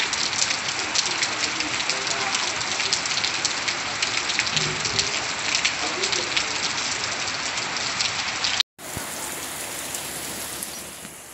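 Steady rain with a dense patter of drops. About eight and a half seconds in it cuts off abruptly and a smoother, quieter rain hiss follows, growing quieter again near the end.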